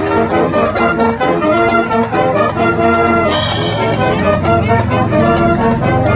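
Brass-led music with a steady beat, with a bright crash about three seconds in.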